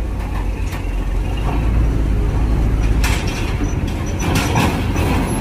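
Engines of large vehicles running with a steady deep rumble as vehicles load onto a ferry. About three seconds in, a loud hiss joins.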